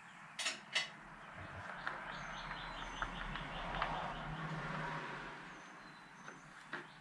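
A bird chirping in quick repeated notes in the background, over a rushing noise that swells and fades over about five seconds. Two sharp clicks sound in the first second.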